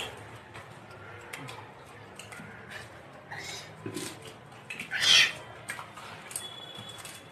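Crunchy chewing of puffed rice eaten by hand from a steel bowl, with short crisp clicks. About five seconds in, a brief loud high-pitched sound rises above it.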